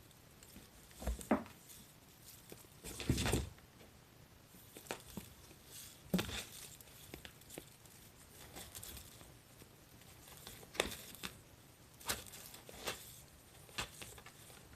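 Irregular rustling and crinkling with soft knocks and clicks scattered through, the loudest a longer scuffle about three seconds in.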